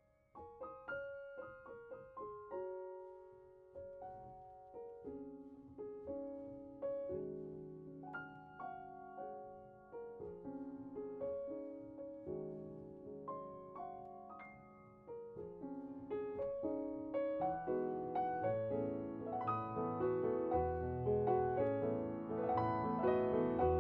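Background piano music: slow single notes and chords that ring and fade, growing fuller and louder in the second half as low bass notes come in.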